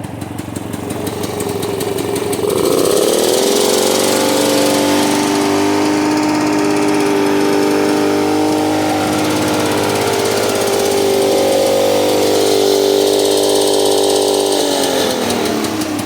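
Engine of an NS 1200 military generator set running on its first start after 50 years laid up. About two and a half seconds in it speeds up to a steady, higher running speed and holds it, then slows back down near the end.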